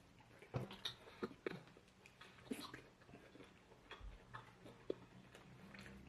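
Fufu with light fish soup being eaten: scattered soft, wet mouth clicks and smacks at irregular moments, at a low level.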